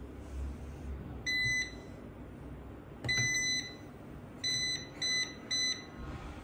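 Daewoo front-loading washing machine sounding its end-of-cycle alert: a string of identical high beeps, first a single one, then a longer one, then three short ones in quick succession, signalling that the wash has finished.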